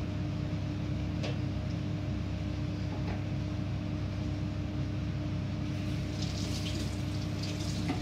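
Steady low electrical hum with an even hiss, from a running appliance or fan, with a couple of faint clicks.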